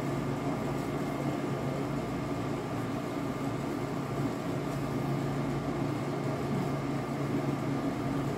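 A steady low mechanical hum with a faint constant tone above it, holding an even level with no distinct knocks or clicks.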